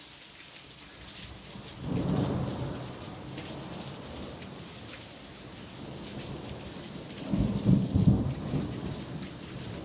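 Thunderstorm: steady rain falling, with a roll of thunder about two seconds in and a louder, longer rumble of thunder near the end.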